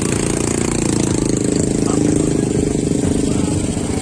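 Small motorcycle engine running close by, a steady rapid putter with its pitch rising slightly about a second or two in.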